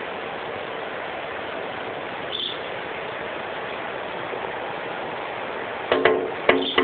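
Female sanhaço tanager pecking at window glass: two quick bursts of sharp taps with a brief ringing of the pane near the end, over a steady hiss.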